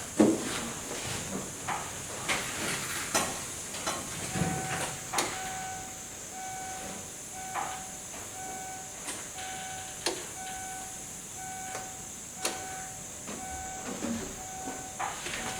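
The Kia Sportage's warning chime dinging steadily about twice a second, starting about four seconds in, with scattered clicks and knocks as the ignition key is cycled on and off to prime the fuel system after the filter change.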